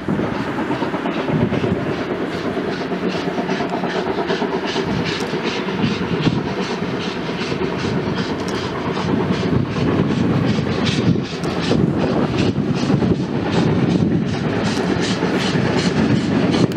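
Steam locomotive approaching under power, its exhaust chuffs beating at about three to four a second and growing louder and sharper toward the end.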